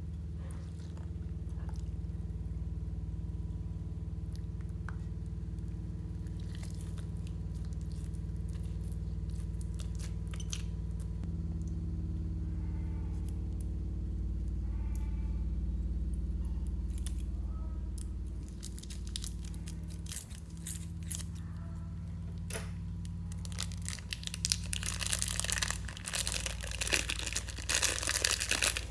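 Sticky squelches and soft clicks of glittery slime being stirred and squeezed out of a plastic piping bag. Near the end, loud crinkling and crackling of the thin plastic piping bag as hands squeeze it, over a low steady hum.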